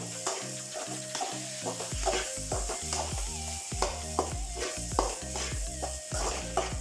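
Vegetable fried rice sizzling in oil in a pan while a spatula stirs and scrapes through it in quick strokes. Background music plays under it, its bass line coming in about two seconds in.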